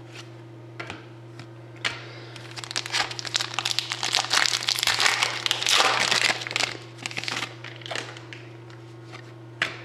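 Crinkling and tearing of a foil hockey card pack being opened and the cards pulled out: a dense, rapid crackle that starts about two seconds in and dies away a couple of seconds before the end. A steady low hum runs underneath.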